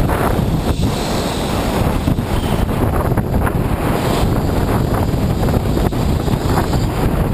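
Heavy wind buffeting on a GoPro clamped to a moving Sydney R-class tram's trolley pole, mixed with the tram's running rumble and vibration carried up the pole. A few faint knocks come through at intervals.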